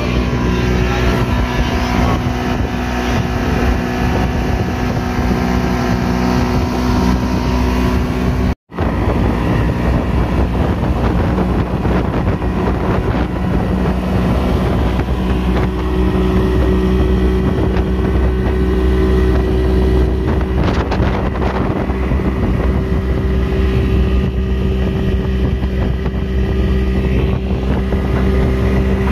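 Fishing boat's engine running steadily under way, with water rushing along the hull and wind on the microphone. The sound drops out for an instant about eight and a half seconds in.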